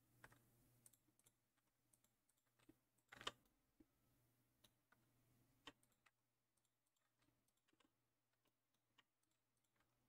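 Faint, sparse clicking of a computer keyboard and mouse, a dozen or so single clicks with a louder short cluster a little after three seconds in.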